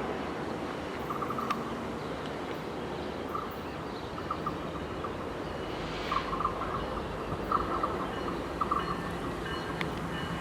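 Steady low outdoor background noise with short, high chirps coming every second or two, and a brief soft hiss about six seconds in.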